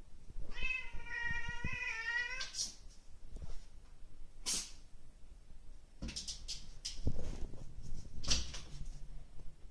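A Bengal cat gives one drawn-out, wavering yowl of about two seconds at its own reflection in a mirror, a territorial challenge to what it takes for another cat. After it come several short sharp sounds and a few soft thumps as the cat moves about.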